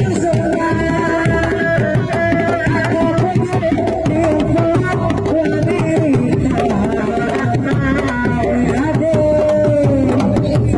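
Dogdog reak drums, the single-headed hand drums of a Sundanese reak ensemble, struck by hand in a rapid, steady rhythmic pattern, with a sustained wavering melody line running over the drumming.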